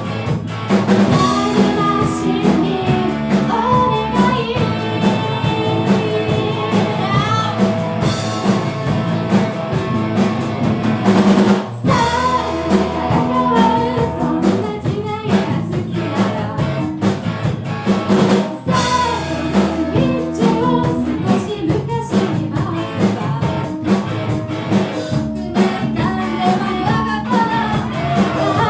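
Rock band playing live: a drum kit keeping a steady beat under bass, guitar and a singing voice.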